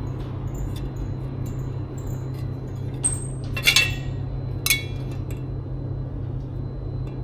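Hard objects clinking a few times, with brief ringing, the loudest strike a little after halfway, over a steady low hum.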